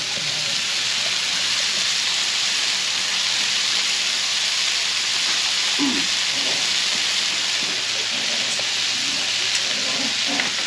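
Ground chuck burger patties frying on a large cast iron skillet over high heat, a steady, even sizzle as the fat renders out.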